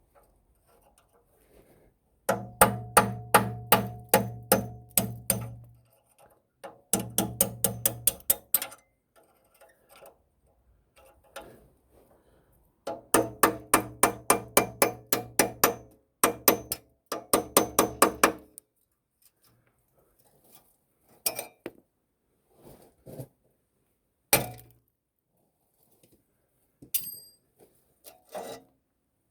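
Hammer striking metal in fast runs of about four blows a second, each blow ringing, with four runs in the first two thirds and then a few scattered single blows near the end.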